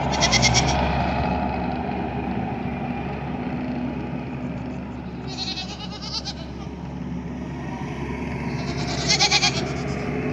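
Goats bleating: three short, quavering calls, one at the start, one about halfway and one near the end, over the steady low drone of an engine running.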